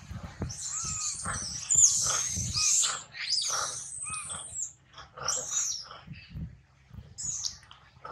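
Baby long-tailed macaque crying loudly: a run of high-pitched squealing cries, loudest about two seconds in, then shorter cries spaced out toward the end.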